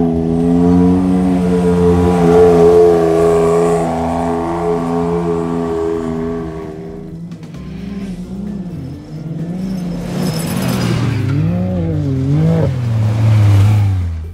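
Side-by-side race buggy engine running at steady revs, then after a break in the sound, buggies racing over sand with engine revs rising and falling and growing louder near the end.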